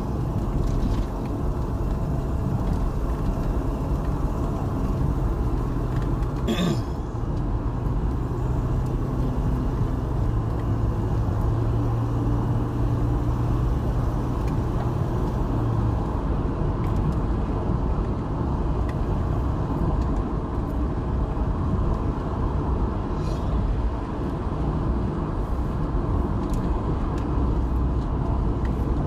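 A car driving, heard from inside the cabin: steady engine and tyre rumble, with a steady engine hum from about six to sixteen seconds in and a single short click about seven seconds in.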